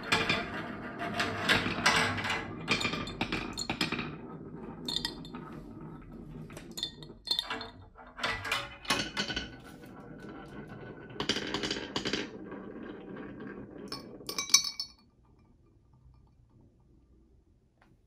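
Marbles rolling off a wooden marble run and dropping into a glass tumbler of water, with many quick clinks and knocks against the glass and each other. The clinking thins out and stops about fifteen seconds in.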